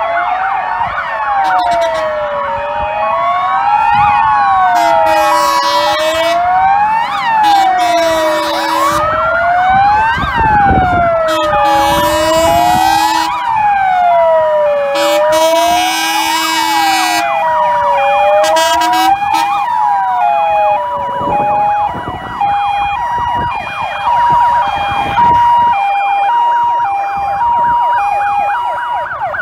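Sirens of several fire engines in a convoy sounding together: a wail rising and falling about every two seconds, a two-tone hi-lo siren alternating between two pitches, and from about twenty seconds in a fast yelp. Several long horn blasts sound over the sirens in the first two-thirds.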